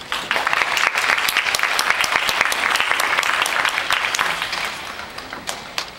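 Audience applauding, rising quickly and then dying away over the last couple of seconds.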